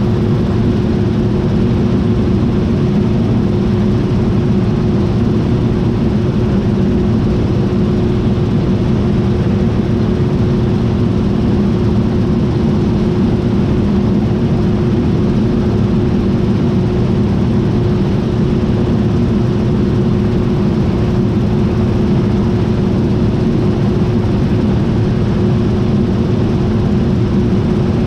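John Deere T660i combine harvester running steadily: a constant heavy machine drone with a thin whine held at one pitch, unchanging throughout.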